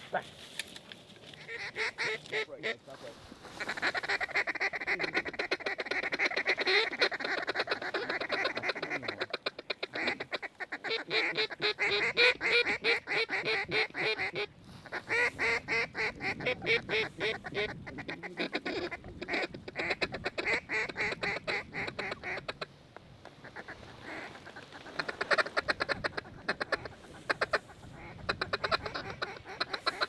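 Waterfowl calling: quacks and honks repeated rapidly in long runs, in several bursts with brief pauses between them.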